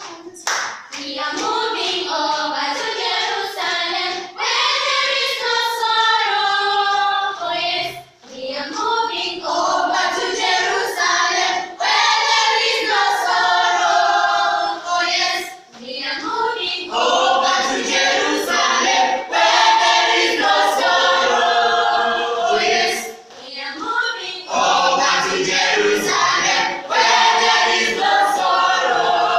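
A mixed school choir of girls and boys singing unaccompanied in several voice parts. The song goes in phrases with short breaks between them.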